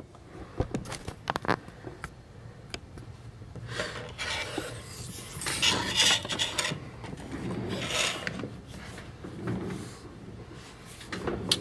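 Things being handled and set in place on a workbench: scattered small clicks, then rubbing and scraping in several patches from about four seconds in.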